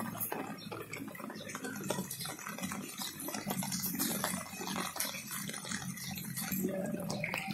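Floodwater sloshing and splashing irregularly as someone wades through knee-deep water.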